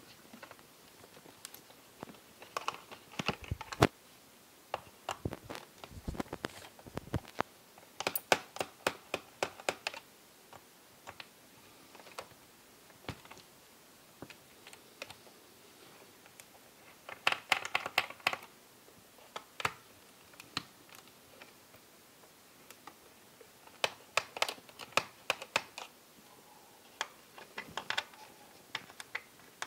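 Small Phillips screwdriver taking screws out of the plastic base of a Sony Vaio F series laptop: irregular clusters of light clicks and taps as the tip seats and turns. There are pauses between the clusters, and a few heavier knocks between about three and seven seconds in.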